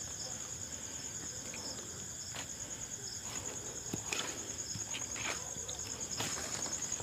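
Crickets chirping in a steady high trill, with scattered light scrapes and taps.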